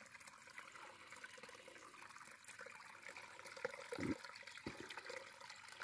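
Small woodland creek running faintly and steadily where it flows into an underground passage beneath the bank. Two soft low thumps come about four seconds in.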